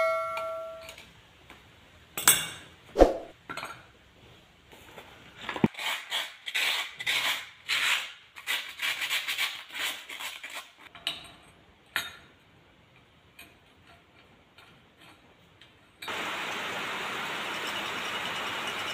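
Metal clinks and knocks as the small metal fan is worked with a rod tool, then a few seconds of rapid scrubbing on the rusty cast fan housing. About three seconds before the end, the repaired air blower starts up and runs with a steady whirr and a faint high whine, its fan spinning in the open housing.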